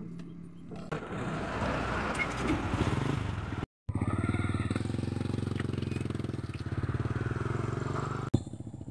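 Small motorcycle engine of a motorcycle-and-sidecar tricycle running and driving off, with a steady pulsing firing rhythm. The sound drops out for a moment about four seconds in.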